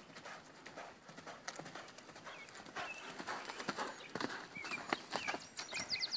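A horse's hoofbeats on the dirt footing of a round pen as it lopes around the rail, a run of dull repeated thuds. A bird chirps a few times near the end.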